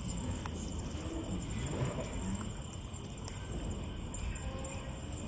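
Night insects, crickets, chirping steadily and high-pitched over a low rumbling background, with a few faint clicks.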